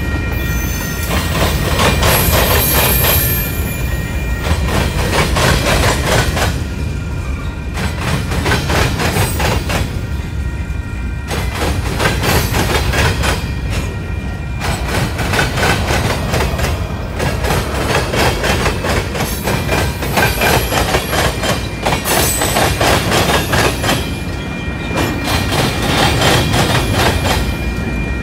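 Freight train of covered hopper cars rolling past close by: a steady rumble with continual clacking of wheels over the rail joints.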